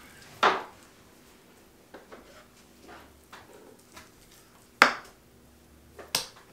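Boning knife slicing elk steaks on a wooden cutting board: three louder knocks of the blade and the meat on the board, the loudest about three-quarters of the way in, with fainter taps between.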